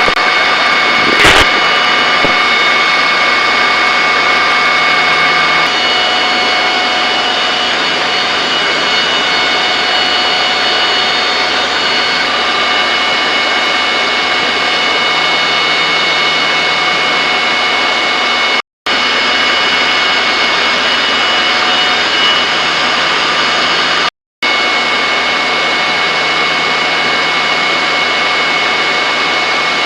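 Loud, steady turbine engine noise with several steady high whining tones over it. There is a sharp click about a second in, and the sound cuts out briefly twice about two-thirds of the way through.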